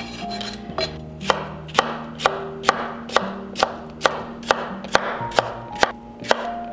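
Chef's knife dicing cucumber on a wooden board: steady, evenly spaced knocks of the blade through the cucumber onto the wood, about two a second, over soft background music.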